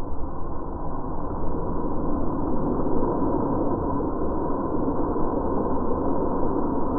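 Steady rushing, rumbling noise of a large flame jetting and billowing out of a glass tank, with a faint steady hum underneath.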